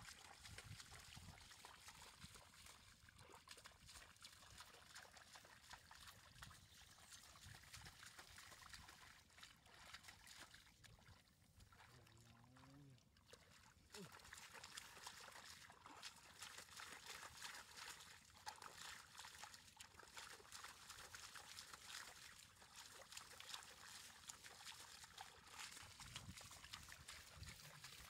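Faint trickling water with many small splashes and clicks from fish wriggling and flapping in a shallow, muddy rice-field channel.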